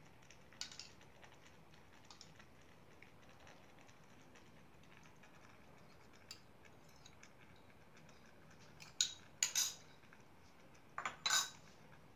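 Metal spoon clinking and scraping against a bowl as tomato sauce is spooned out over a dish: a few light taps, then louder clinks and scrapes about nine seconds in and again near the end.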